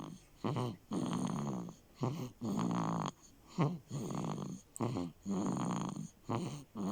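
Steady, rhythmic snoring: each breath cycle is a short snort followed by a longer snore, repeating about every one and a half seconds, five times over.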